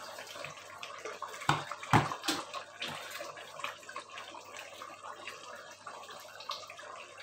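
Chicken curry bubbling and sloshing in a clay pot as it is stirred with a wooden spatula. Scattered clicks run through it, with two sharp knocks about one and a half and two seconds in.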